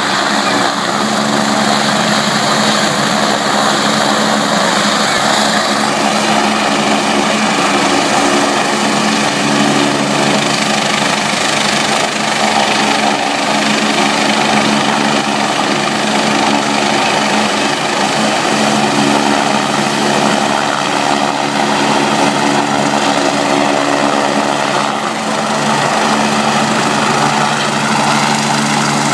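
Turbine helicopter running on the ground with its rotor turning: a steady engine whine over a low rotor hum. A higher whine eases off about six seconds in.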